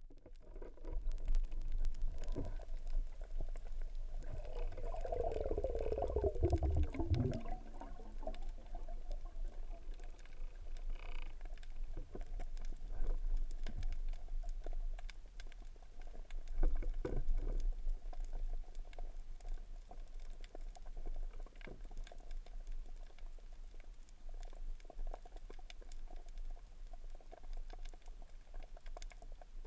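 Muffled underwater sound through a GoPro's waterproof housing: a steady crackle of small clicks and water movement. About five seconds in, a tone slides down in pitch over two seconds or so, and a few dull low thumps come through.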